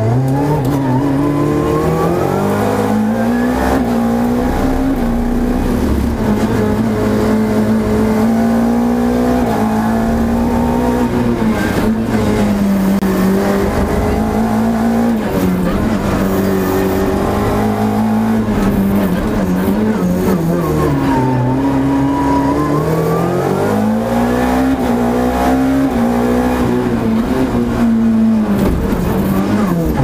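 Renault Clio Group A (FA7) rally car's four-cylinder engine at full effort, heard from inside the cockpit. The revs climb and fall again and again, with rising pitch through each gear and sharp drops on lifts and braking for the tight corners.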